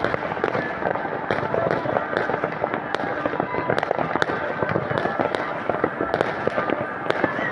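Many fireworks and firecrackers going off at once: a continuous dense crackle of small pops, with louder single bangs scattered throughout.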